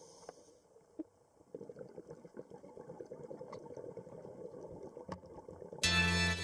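Underwater sound picked up by a camera in its housing: a low rumbling, gurgling wash with scattered sharp clicks, growing louder after the first second or so. Near the end, organ music starts suddenly and is the loudest sound.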